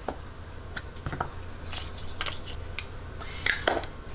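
Scattered light rustles and clicks of small items being handled on a tabletop, over a steady low hum.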